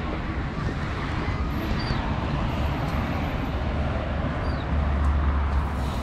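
Outdoor street ambience: steady traffic noise from a nearby road, with a low rumble that swells about five seconds in and a few faint bird chirps.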